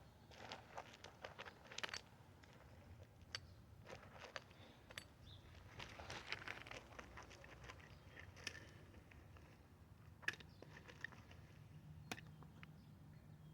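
Faint scattered clicks, taps and scrapes of metal being handled as cast brass pieces are worked out of a mold, over a faint steady low hum.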